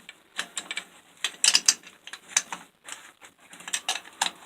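Metal parts of a disassembled Black & Decker angle grinder being handled, a string of irregular small clicks and clacks, bunched about a third of the way in and again near the end.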